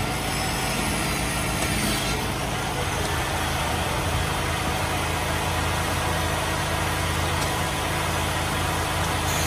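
Steady drone of a running motor, a low even hum that firms up about two seconds in, with no distinct cuts or impacts.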